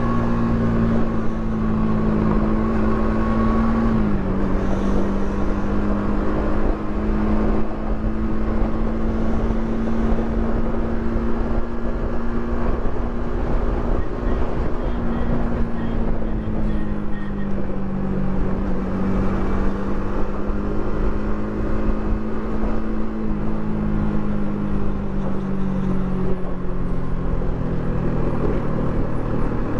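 Yamaha R15 V3's single-cylinder engine on its stock exhaust, cruising on the road under steady throttle, with wind rushing over the microphone. The engine note drops about four seconds in and then holds nearly steady.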